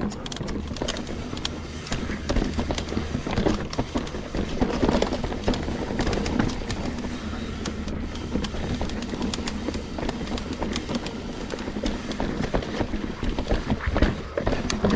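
Trek Slash 9.8 full-suspension mountain bike ridden fast down a dirt trail: a steady rush of tyre noise and air over the camera's microphone, with frequent clicks and knocks as the bike rattles over bumps and roots.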